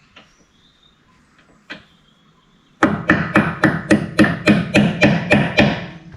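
Hammer blows on steel, about four strikes a second for some three seconds after a single knock, knocking at a pillow bearing to drive it off the winch's drum shaft.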